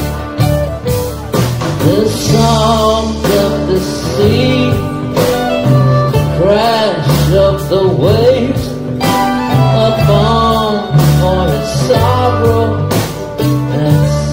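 Live band music: an instrumental passage with a lead line bending and sliding between notes over a steady bass and regular drum hits.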